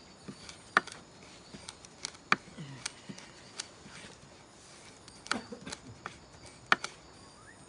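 Kitchen knife mincing fresh rosemary on a wooden cutting board. The blade strikes the board in a dozen or so irregular, sharp knocks, with a short pause midway.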